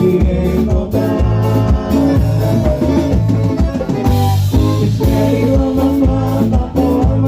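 Band music with a drum kit and a strong bass line, a cymbal wash about four seconds in.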